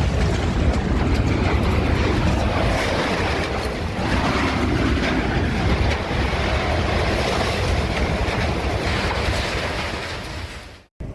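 Strong wind roaring and buffeting the microphone, with a heavy low rumble; it cuts off suddenly near the end.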